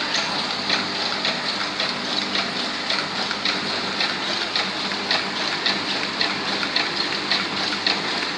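Industrial printing press running plain sticker stock, with a steady hum under an even, rhythmic clatter.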